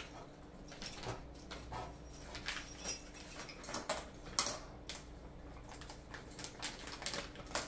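Small clear plastic zip-lock bag crinkling as it is handled and opened, with the small screws and Allen wrenches inside clinking against each other in scattered clicks.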